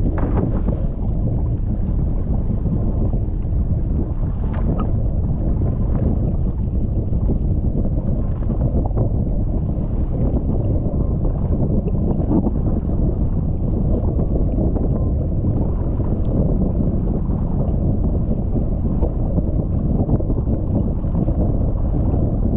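Steady wind buffeting the microphone of a camera mounted on a windfoil rig, over the rush of water and spray from the board foiling across the sea.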